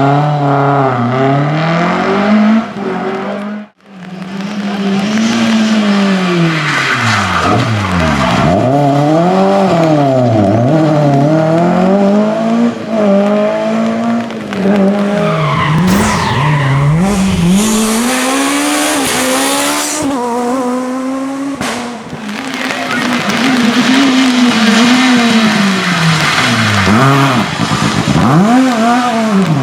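Rally cars' engines revving hard and falling away again and again through quick gear changes as they drive the stage. The sound cuts off sharply about four seconds in, and a loud hiss rises over the engines partway through.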